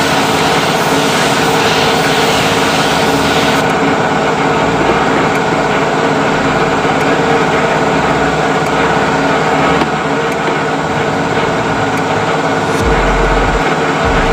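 Air compressor running steadily, with the hiss of a gravity-feed spray gun laying down a first coat of clear lacquer that stops about three and a half seconds in.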